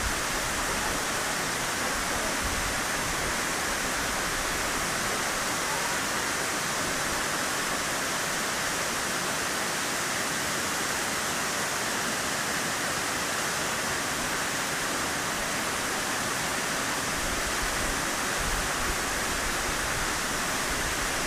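Ryūmon Falls, a large waterfall, pouring: a steady, even rush of falling water that does not change.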